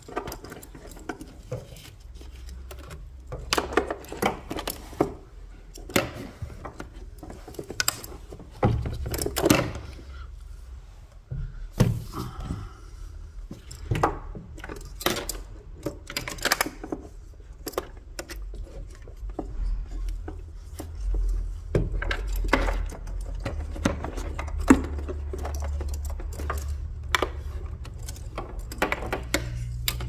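Irregular clicks and rustles of a Mercedes W204 front SAM unit's wiring harness and hard plastic plug connectors being handled and pushed into place, over a low steady hum that grows stronger in the second half.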